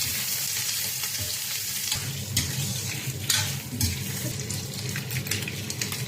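Pork ribs sizzling in hot oil with star anise, ginger and garlic in a cooking pot, with a steady hiss, while being stirred with a spatula that scrapes the pot a few times.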